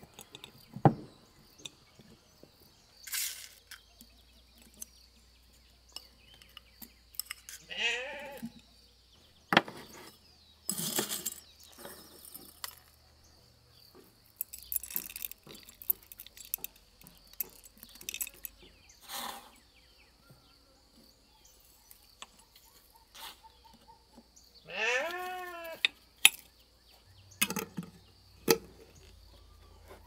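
Scattered clinks, taps and knocks of hands-on food preparation, glass jars and utensils being handled. An animal calls twice, briefly about eight seconds in and longer near twenty-five seconds, with a wavering pitch.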